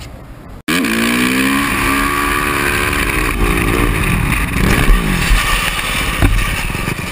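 Dirt-bike engine revving hard, its pitch rising and falling as the rider holds a wheelie, starting abruptly a little over half a second in, with a sharp knock about six seconds in.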